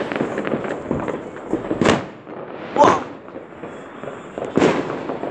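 Fireworks going off: a spell of crackling pops, then three sharp bangs, the loudest about three seconds in.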